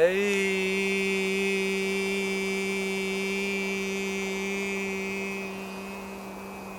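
A man's voice sounding one long, sustained chanted tone as a qigong healing-sound exercise. It drops to a lower pitch at the start, then holds steady at that pitch and slowly fades.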